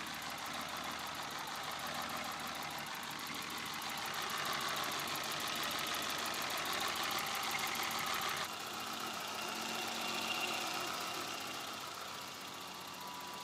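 BMW E30's M20 inline-six engine idling with the tick and misfire of poorly adjusted valves. About eight and a half seconds in it cuts to the same engine idling after the valve adjustment: some ticking remains, but no misfiring.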